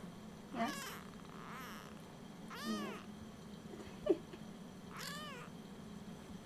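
Four-week-old Siamese kitten meowing four times, one call faint, each meow rising and falling in pitch. A brief sharp sound about four seconds in is the loudest moment.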